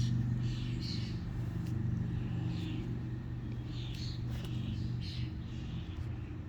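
A steady low motor hum, like a vehicle engine running nearby, easing off a little toward the end. Short high chirps sound over it about every second.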